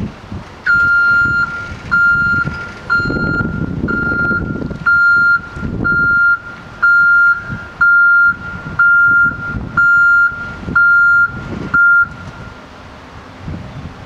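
Backup alarm of a hi-rail pickup truck beeping about once a second, about a dozen beeps, stopping about 12 seconds in, over the low rumble of the truck as it is put onto the rails.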